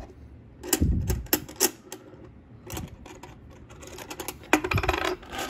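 Silver Canadian dollar coins clicking and clinking against each other and the wooden tabletop as they are stacked by hand into piles of ten. Quick runs of light metallic clicks come about a second in and again near the end, with only a few scattered clicks between.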